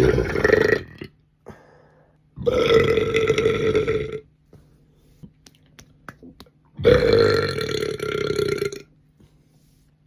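Loud human burps: one already under way that ends about a second in, then two long burps of about two seconds each, starting about two and a half and seven seconds in.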